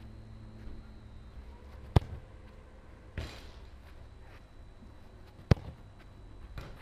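A football kicked hard twice, two sharp thwacks about three and a half seconds apart, with a smaller, duller hit shortly after the first.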